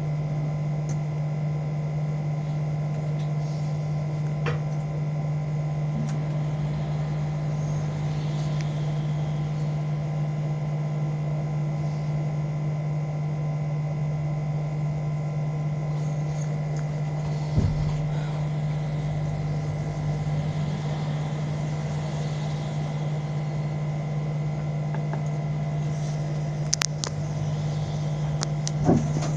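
Battery-electric city bus standing at a stop, its onboard electrical equipment giving a steady hum with several fixed higher whining tones. A low knock in the middle and a few short clicks near the end.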